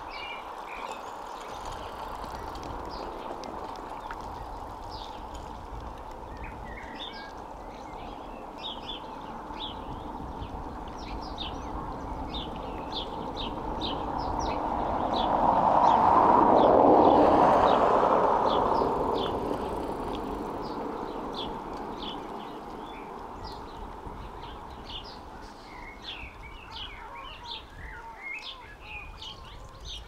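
Small birds chirping over and over in short, high calls above a steady background hush. Around the middle a broad rushing noise swells up over several seconds, becomes the loudest sound, then fades away.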